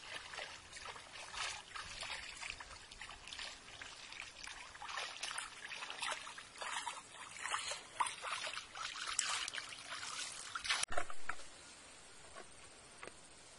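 Pond water splashing and sloshing unevenly as a mosquito net is dragged through a shallow muddy pond by people wading in it. The splashing stops abruptly about eleven seconds in, leaving a quieter, steady background.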